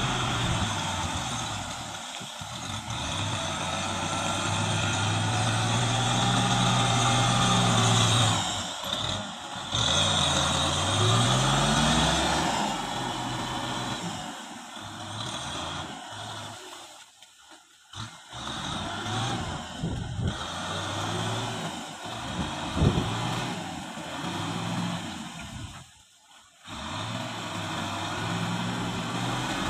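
Kubota M6040SU tractor's diesel engine running while plowing, its pitch rising and falling with the throttle. The sound drops out briefly twice, about halfway through and again near the end.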